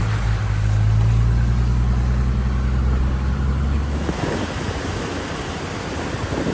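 Vehicle engine running with a steady low hum, which dies away about four seconds in, leaving a wind-like rush.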